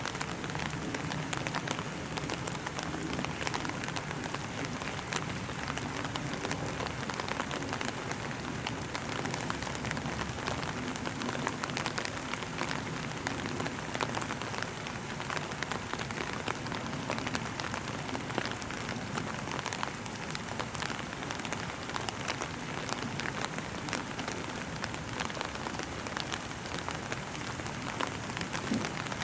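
Steady rain falling and pattering, with many small drop ticks throughout.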